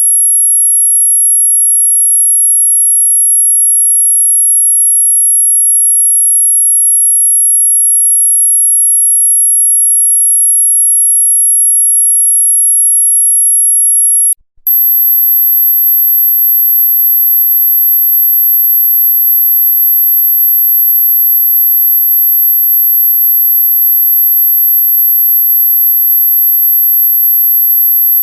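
Dog-whistle sound effect: a single very high, steady pure tone. About halfway through it cuts out for a moment and resumes at a slightly higher pitch.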